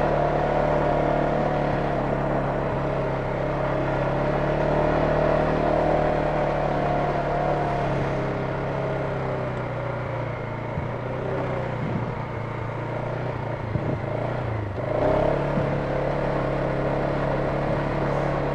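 ATV engine running steadily at low throttle, with a few light knocks near the end. About fourteen and a half seconds in, the engine note dips briefly and then picks up again.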